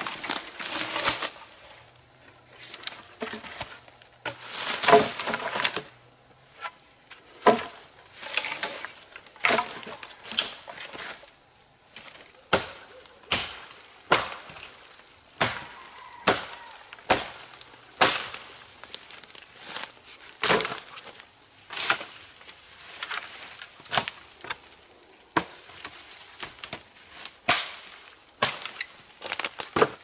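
A machete chopping into thin tree trunks and branches: sharp, irregular strokes, about one or two a second, with leafy branches rustling in between as the cut wood is pulled free.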